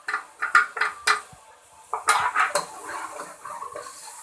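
A spoon knocking and scraping against a cooking pot as spiced minced meat is stirred: several sharp clanks in the first second, then a longer scraping stir about two seconds in.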